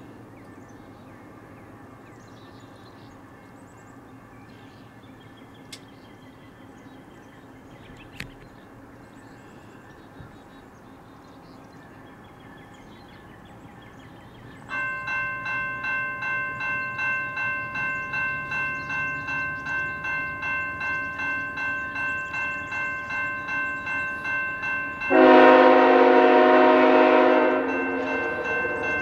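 Faint distant sound of an approaching freight train. About halfway through, the grade-crossing warning bell starts, ringing about twice a second. Near the end the lead locomotive's air horn sounds one loud, long blast over the bell, then cuts off while the bell keeps ringing.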